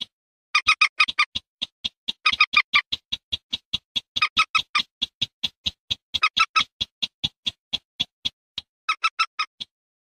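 Recorded lure calls of the common moorhen (mandar batu) and barred rail (sintar semak): a rapid, even run of sharp clicking call notes, about four to five a second. Some notes are fuller and ringing, others thinner. They start about half a second in and stop shortly before the end.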